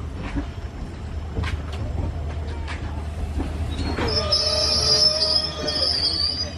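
Passenger train rolling slowly while shunting: a steady low rumble with a few sharp knocks, then from about four seconds in the wheels squeal in high, held tones.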